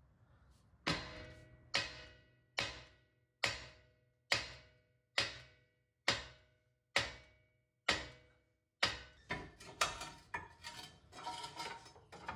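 Sledgehammer striking the end of a CV axle in a front wheel hub: nine heavy metal blows, about one a second, each ringing briefly. The axle is rust-seized in the hub and will not drive out. In the last few seconds come faster, lighter and irregular metal knocks.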